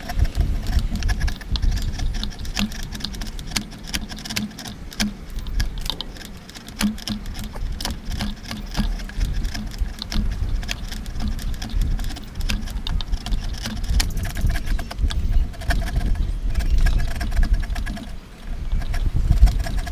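Hand chisel pushed through wood, paring shavings from a joint cut: a run of dry scraping and crackling clicks over a low rumble.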